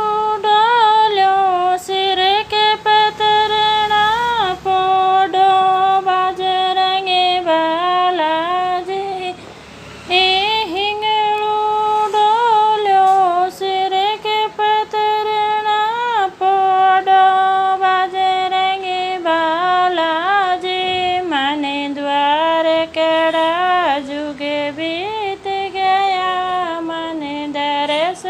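Wordless melodic passage of a Marwari devotional bhajan: one high, voice-like line of long held notes with quick ornamental turns and slides.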